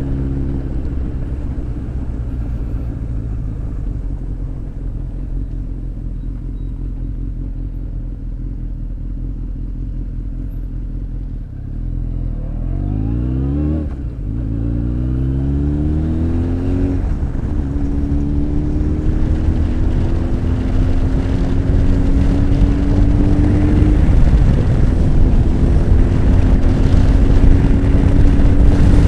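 Honda X4 motorcycle's inline-four engine idling, then pulling away about twelve seconds in and revving up through the gears with quick shifts. It then runs at a steady road speed, its pitch slowly climbing as wind noise grows.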